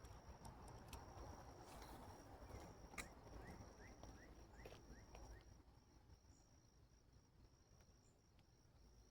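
Faint outdoor ambience of an insect trilling, one steady high-pitched tone with brief regular breaks. About halfway through come a couple of sharp clicks and a quick run of six or so small rising chirps. Then it all settles to a quieter trill.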